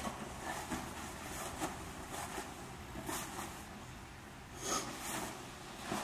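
Black plastic bag being handled and crinkled in a few short rustling bursts, the longest near the end, over a low steady background rumble.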